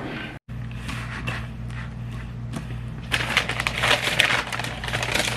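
Crinkling and crackling of packaging handled by hand, growing denser and louder about three seconds in, over a steady low hum.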